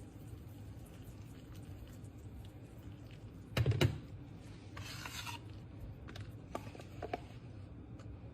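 Soft rubbing and scraping from objects being handled close to the microphone. There is a dull thump about three and a half seconds in and a few light clicks.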